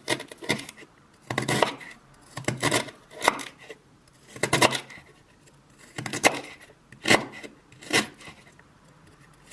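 A series of short, sharp clattering knocks and scrapes of hard objects being handled, about one a second, with quiet gaps between them.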